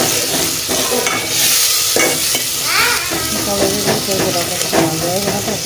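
Tomato, onion, garlic and green chilli masala sizzling as it fries in an aluminium pot, with a metal spoon stirring and scraping against the pot again and again.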